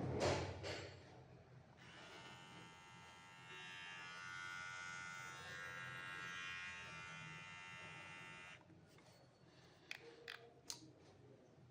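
Xiaomi Beard Trimmer 2 switched on and running with a steady electric buzz for about seven seconds, a little louder after the first couple of seconds, then switched off. A handling knock comes at the very start and a few light clicks follow near the end.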